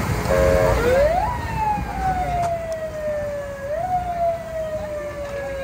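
A siren wailing over street noise. Its pitch sweeps up quickly about a second in and falls slowly, then rises again about four seconds in and falls away.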